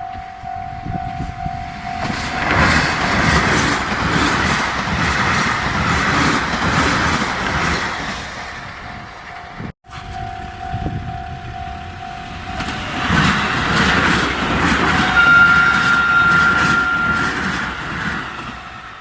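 Level crossing bell ringing in a steady repeating tone, then a train passes over the crossing with loud rumble and wheels clattering on the rail joints. The bell then rings again and a second train passes, sounding its horn in one long note of about two seconds.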